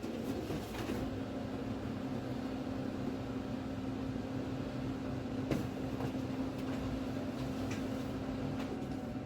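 Steady mechanical hum from a running machine, holding one low tone, with a sharp metallic click about halfway through.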